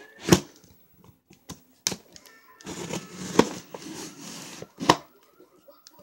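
A knife cutting through the plastic wrap and tape on a cardboard box. There are a few sharp clicks and knocks, and a scraping, tearing noise for about two seconds in the middle.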